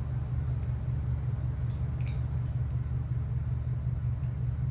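A steady low hum with a faint click about two seconds in.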